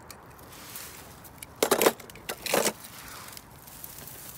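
Two short rustles of dry grass and leaves, a little under a second apart, over faint outdoor hiss.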